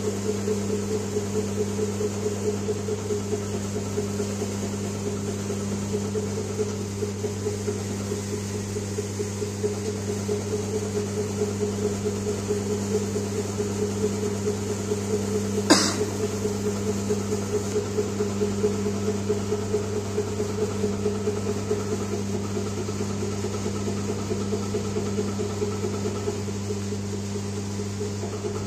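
Motor-driven hydraulic pump of a compression testing machine running with a steady electric hum while it builds load on the ram. A single sharp click about sixteen seconds in.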